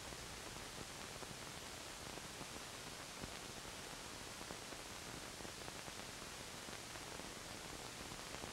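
Faint steady hiss of an old film soundtrack, with no other sound.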